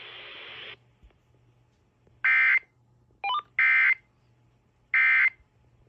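EAS end-of-message data bursts: three short, identical buzzy digital bursts about a second apart, signalling the end of the severe thunderstorm warning. Before them a radio hiss cuts off a little under a second in, and a brief chirpy blip falls between the first two bursts.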